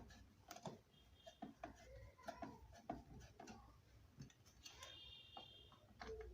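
Faint, irregular clicks and light taps of hand-work with a screwdriver on small fan and regulator parts, with two brief high squeaks, one about a second in and one near five seconds.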